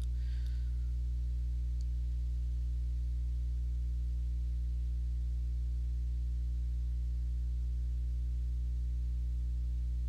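Steady low electrical hum, unchanging, with no other sound above it.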